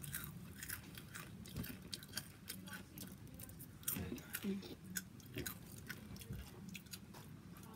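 Someone chewing crunchy food close to the microphone: an irregular run of small crunches and clicks.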